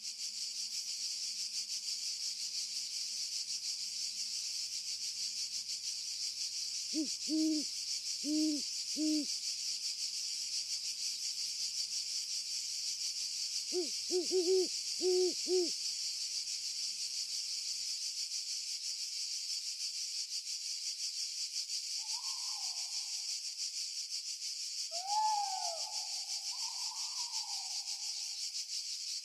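An owl hooting at night: three low hoots, then a few seconds later a quicker run of four, over a steady high hiss. Near the end come a few higher calls that bend in pitch.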